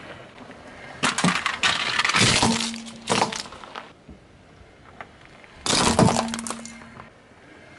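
A car tyre crushing hard, brittle toys: sharp cracking and crunching in two bouts, a longer one about a second in and another toward the end as a toy tiara breaks under the wheel.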